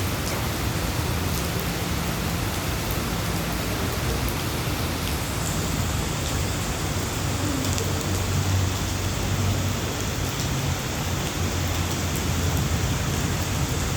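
Heavy rain pouring down steadily, with a low steady hum underneath.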